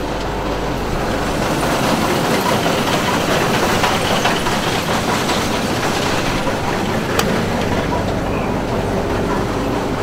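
Case IH Axial-Flow 7088 combine harvester running close by with its header and threshing gear engaged: a loud, dense, steady mechanical clatter. A single sharp click sounds about seven seconds in.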